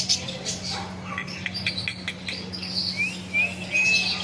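Parrot chirping in quick short calls, then giving three short rising whistles near the end, over a steady low hum.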